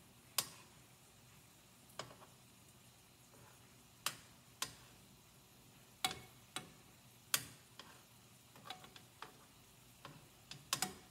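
Metal tongs clicking against a nonstick skillet and the shrimp as the shrimp are turned over one by one: about a dozen sharp clicks at uneven intervals, coming closer together near the end.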